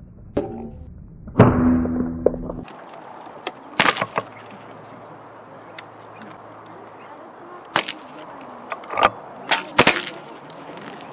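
A series of sharp cracks at irregular intervals, about eight in all. The loudest comes about a second and a half in and is followed by about a second of ringing.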